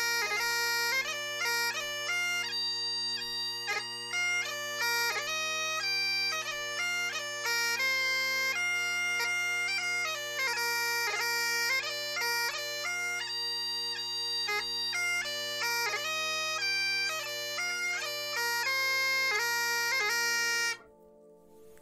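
Bagpipe music: a tune on the chanter over steady, unbroken drones, stopping suddenly about a second before the end.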